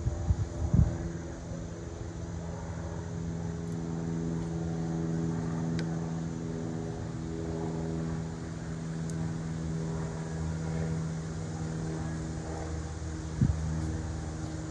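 A steady engine drone, a low even hum with no change in pitch, runs through the whole stretch. Over it come a few knocks in the first second and a few light snips of small bonsai pruning scissors.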